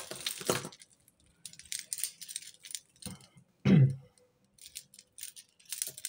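Costume jewellery chains, beads and metal bangles jangling and clinking in short scattered bursts as hands rummage through a pile on a table. A single brief, louder, low-pitched sound comes a little past halfway.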